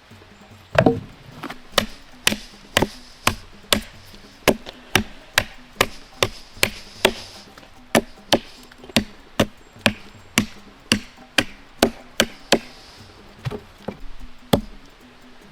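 A hand tool striking wood: a long run of sharp chopping or hammering blows, about two a second. The blows stop a few seconds before the end, after two last, slower strikes.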